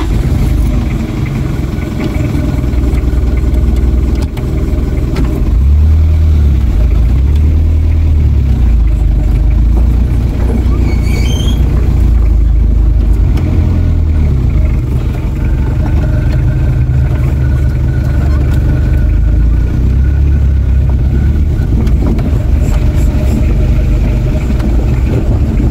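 Hyundai H100 motorhome under way on the road: a steady low engine and road rumble, with the engine note shifting about five seconds in.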